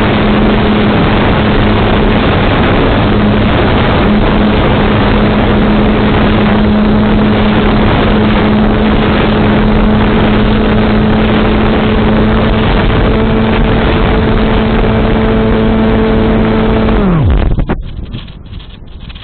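Electric motor and propeller of a Volantex Phoenix S RC glider running at a steady pitch under heavy wind noise on the microphone. About 17 seconds in, the motor is cut and its pitch falls quickly as it spins down to a stop, leaving only wind.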